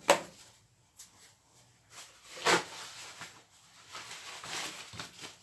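Paper kitchen towel rustling and crinkling as raw sea bass pieces are patted dry, with a sharp knock right at the start and a louder rustle about two and a half seconds in.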